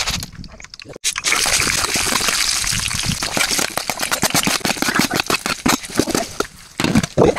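Water pouring and splashing, starting abruptly about a second in.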